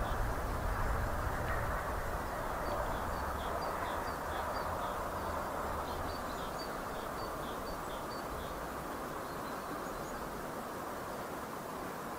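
2ES10 'Granit' freight electric locomotive accelerating, its asynchronous traction drive making a steady whistling noise over a low rumble that eases off about halfway through. Birds chirp a few times a second over it.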